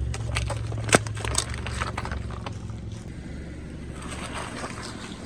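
Car engine running with a steady low hum while a tyre rolls over and crushes objects: scattered crackling crunches and one sharp crack about a second in. The engine hum drops away about halfway through.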